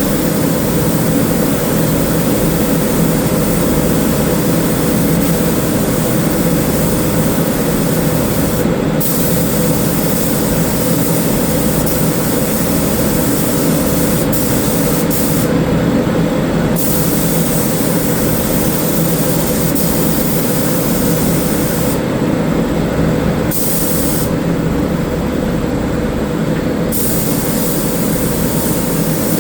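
Spray gun hissing as it lays down sealer primer, the hiss breaking off briefly several times as the trigger is let go, over a steady low machine hum.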